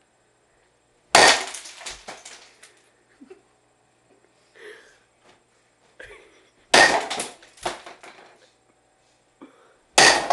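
Three loud crashes, each sudden and trailing off over about a second, the second coming about five and a half seconds after the first and the third about three seconds after that.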